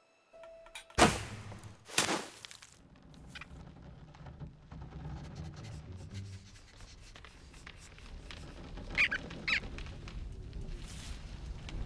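Cartoon sound effects: two sharp thunks about a second and two seconds in, then two short, high squeaks from the animated rodents about three-quarters of the way through.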